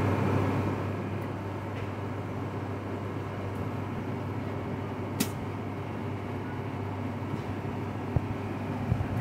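Ice cream machine running with a steady low electric hum from its belt-driven motor and compressor. A sharp click about five seconds in and a knock near the end.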